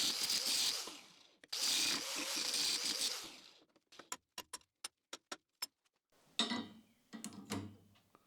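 Steel plates tack-welded into a stack are being separated: two stretches of hissy grinding through the welds, one short and one about two seconds long. Then comes a quick run of light sharp clicks and a few duller knocks as the steel pieces come apart and are handled.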